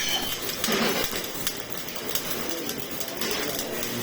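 Electric arc welding: a stick-welding arc crackling and sizzling steadily as a bead is run.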